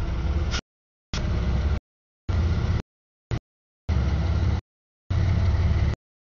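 Short snippets of a passing freight train's rumble, each cut off abruptly, with dead silence between them: five pieces of about half a second to a second each, plus one very brief blip.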